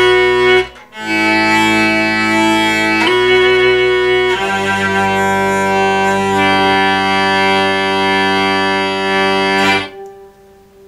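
Hyper-hurdy-gurdy, a hurdy-gurdy augmented with sensors and digital signal processing, played with its wheel bowing the strings: sustained, overlapping notes that change pitch several times, with a short break about a second in. It stops abruptly near the end, leaving a brief fading ring.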